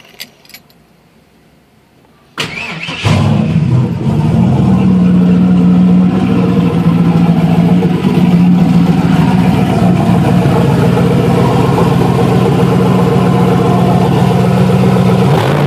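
Keys jingle as the ignition is turned. About two and a half seconds in, the starter cranks briefly and the turbocharged 4.8 L LS V8 fires and settles into a steady idle. Right at the end, the engine speed begins to rise and fall.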